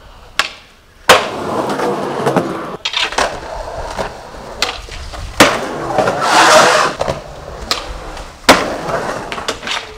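Skateboard wheels rolling on concrete, broken by several sharp wooden clacks of the board popping and landing during ollies, the loudest about a second in, past the middle and near the end.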